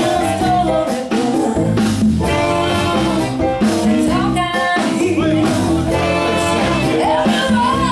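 Live blues band playing: a woman singing lead into a microphone over electric guitar, keyboards and drums with a steady beat.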